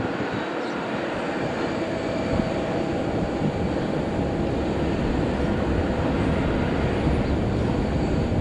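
The Boeing 787-8's twin GEnx-1B turbofan engines running at taxi power: a steady jet rumble with a faint whine. It grows gradually louder as the aircraft taxis round toward the microphone.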